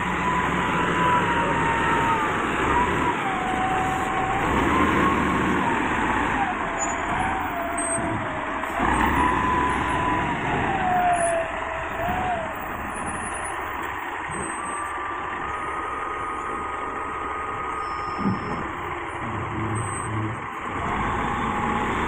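Hindustan wheel loader's diesel engine working as the machine drives with a loaded bucket, a whine sliding up and down in pitch with the revs, then holding steady for a few seconds. A single knock about eighteen seconds in.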